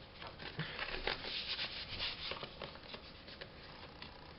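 Paper and card rustling as they are handled, a quick string of short scratchy rustles that thins out after about three seconds.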